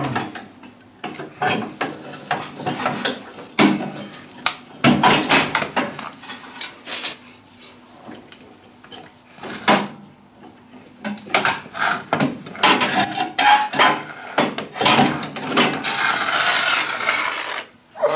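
Metal tools and lawn tractor transaxle parts clinking and knocking in irregular taps and rattles, with a longer, denser stretch of rattling near the end.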